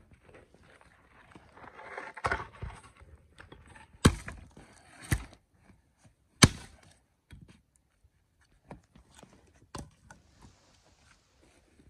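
Axe chopping into a log: a few sharp strikes about a second apart in the middle, loudest about six and a half seconds in. Softer knocks of wood being handled around them.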